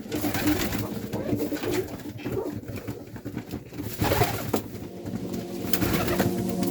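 Serbian highflyer pigeons cooing repeatedly in their loft, with several birds calling over one another. There are a couple of short knocks about four seconds in.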